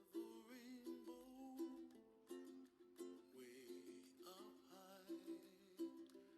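Quiet, gentle ukulele music with plucked, repeating chords, and a soft wavering voice line over it now and then.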